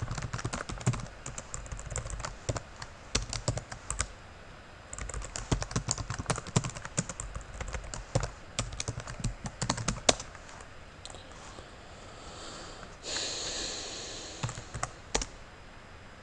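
Typing on a computer keyboard: quick runs of keystrokes for about the first ten seconds, then a few scattered key presses. A brief hiss about thirteen seconds in, then a couple more keystrokes.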